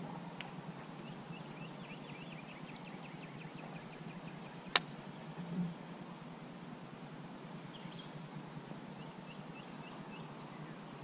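Faint bird calls: a rapid series of short high chirps, twice. There is a single sharp click about five seconds in.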